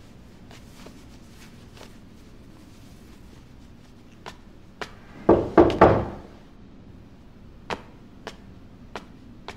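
Three loud knocks on a steel front door a little after halfway, ringing briefly, followed by steady footsteps on a hard tiled floor, about one step every half second or so.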